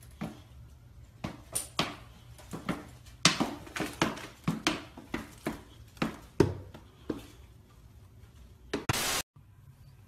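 A boxer dog in dog boots walking on a hardwood floor: irregular taps and light thuds of the booted paws, sometimes in quick runs, stopping about seven seconds in.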